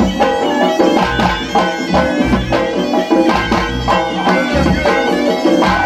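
Tunisian folk band playing Djerbian shala dance music: a reedy, bagpipe-like wind melody with ornamented turns over a steady beat of hand drums.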